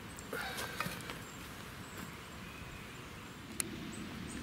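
Faint handling noises, soft rustles and knocks in the first second or so, over a low outdoor background, with one sharp click about three and a half seconds in.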